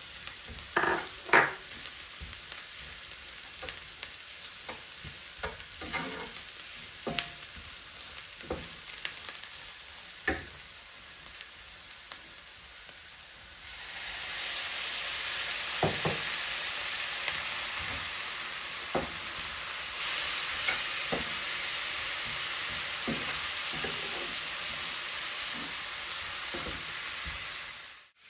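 Chopped onions and ground spices sizzling in a non-stick pan, stirred with a wooden spatula that scrapes and taps against the pan. The sizzle turns louder about halfway through.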